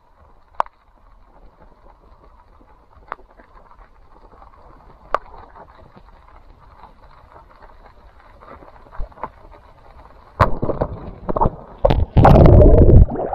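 Faint underwater hiss with a few sharp, isolated clicks. Near the end come loud, rushing water and air noises, very loud for about the last second and a half, as the diver rises to break the surface.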